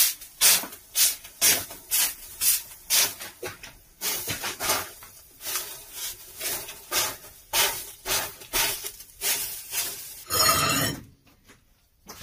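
Hand trigger spray bottle spritzing water onto the hot, ash-dusted door of a brick sauna stove, quick sprays at about two to three a second, the water turning to steam that pushes the ash back into the stove. A longer, louder noise comes near the end.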